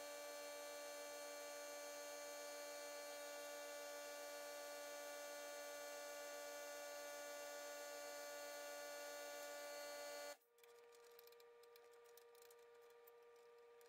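A steady electrical or machine hum made of many fixed tones that cuts off suddenly about ten seconds in, leaving a fainter single tone and a few light ticks.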